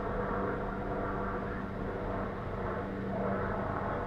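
Truck engine idling steadily, an even hum that holds the same pitch throughout.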